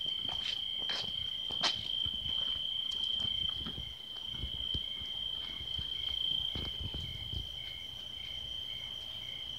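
Night-time cricket chorus: a steady high-pitched trill, with a second, lower insect call pulsing about every half second underneath. A few knocks sound in the first two seconds, the sharpest a click just under two seconds in.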